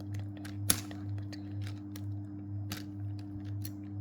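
Sharp little clicks and taps of plastic 4x4 Rubik's cube pieces being handled and fitted into place, the loudest about a second in and a few more later, over a steady low hum.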